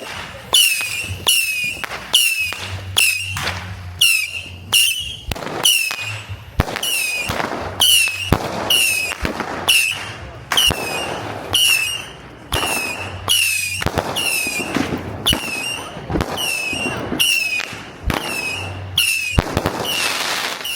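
Consumer firework cakes firing shot after shot, about one to two bangs a second, each with a short whistling chirp.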